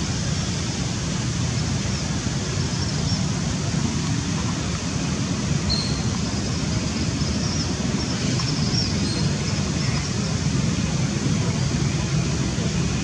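Steady low rumbling outdoor background noise, with a few faint short high chirps around the middle.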